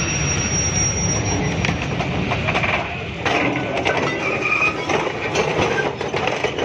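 Freight train at a derailment: a steady engine rumble with clanking metal and short wheel squeals in the second half.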